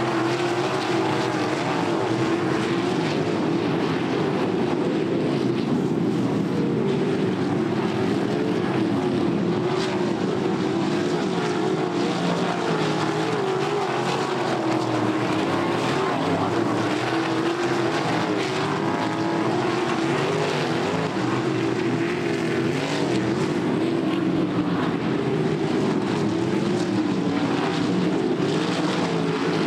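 Winged sprint cars' V8 engines racing on a dirt oval: a loud, unbroken engine drone whose pitch wavers up and down as the cars lap and pass.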